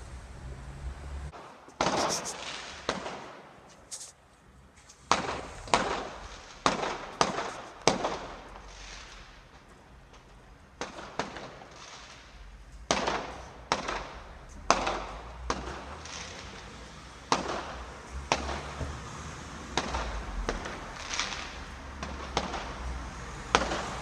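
Fireworks going off: a string of sharp bangs at uneven intervals, each with a short fading tail.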